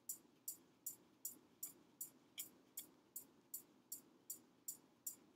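Faint background music: a steady, high shaker or hi-hat beat at about two and a half strokes a second, over a low hum.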